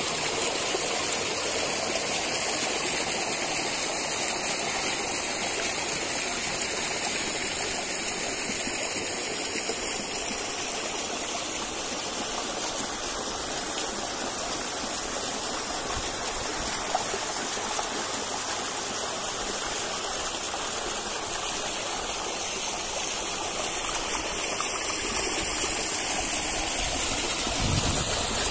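Steady rush of water falling and running at a waterfall that is low in the dry season, with only two of its five streams still flowing.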